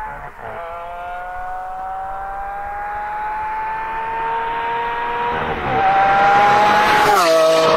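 Lamborghini Aventador's V12 accelerating hard toward and past, its pitch climbing through the gears with a quick dip at each upshift, about half a second in and again around five and a half seconds. It gets louder as it closes in, then the pitch drops sharply near the end as the car goes by.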